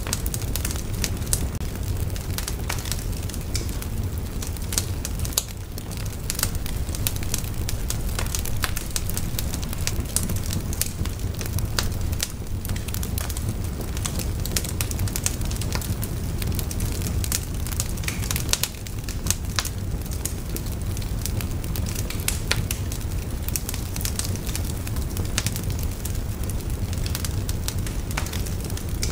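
Wood fire crackling in a metal fire pit, with frequent irregular sharp pops over a steady low rumble.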